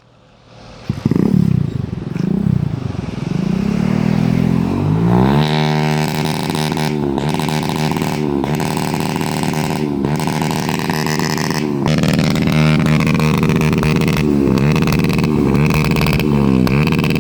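Motorcycle engine through an Akrapovic aftermarket exhaust, revved up and then held at high revs with brief drops and quick throttle blips near the end. The exhaust pops and crackles on the overrun.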